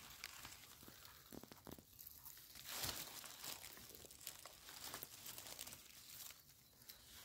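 Faint rustling and crackling of dry fallen beech leaves as a hand digs young porcini out of the leaf litter, with a slightly louder rustle about three seconds in.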